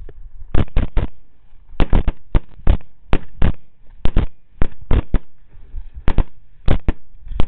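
Rapid, uneven volley of rifle fire from several semi-automatic rifles firing together, among them 6.5 Grendel AR-15s: about twenty loud shots, two or three a second, some nearly on top of each other.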